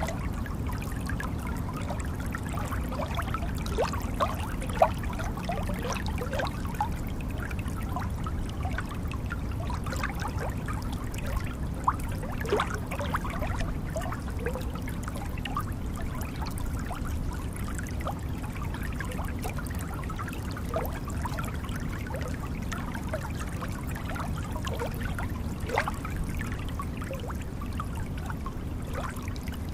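Waterfall: a steady rush of falling water with many small splashes and plops scattered through it.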